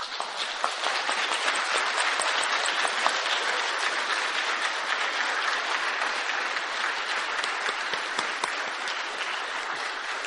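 Audience applauding: dense, steady clapping that starts at once and eases slightly toward the end.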